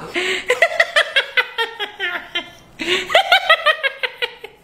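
A man laughing hard in two long bouts, each a quick run of 'ha' pulses, with a brief break between them.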